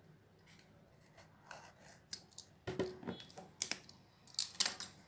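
Clear plastic shrink-wrap on a smartphone box being slit with a small blade and pulled loose. After about a second of quiet comes a run of scratchy rustles and crinkles, with a few sharp louder crackles in the second half.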